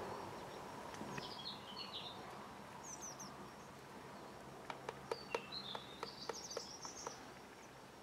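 Eurasian nuthatch pecking at peanuts through a wire-mesh feeder, a quick irregular run of sharp taps in the second half. Small birds chirp high, short calls around it.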